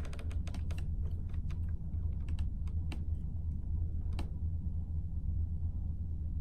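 A quick run of light clicks and taps in the first two seconds, then two single clicks, about three and four seconds in, over a steady low hum.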